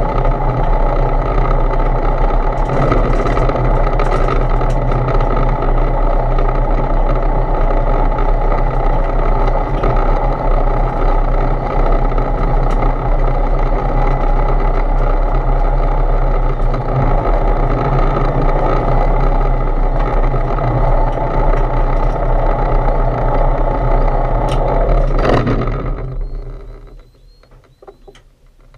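Foxbat A22LS light aircraft's Rotax 912 four-cylinder engine running steadily at taxi power, heard from inside the cockpit. About 25 seconds in the engine is shut down and the propeller winds down to a stop, leaving only a few faint clicks.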